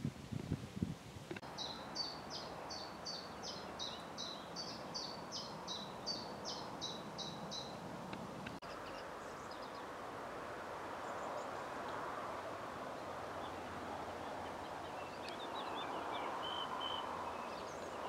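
A songbird sings a quick run of repeated high notes, about three a second, for several seconds over a light outdoor hiss. After a cut, a steady rustling hiss takes over, with faint bird chirps near the end.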